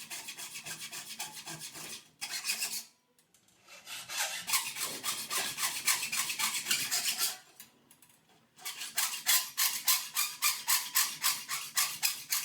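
Hacksaw cutting through steel cable tray held in a vise, with quick, even back-and-forth rasping strokes. The sawing stops briefly about three seconds in and again about eight seconds in, then resumes.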